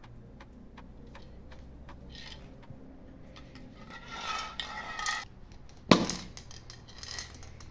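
Hands-on crafting sounds: small clicks and a scraping, clinking stretch of a utensil against a hard container, then one sharp knock about six seconds in.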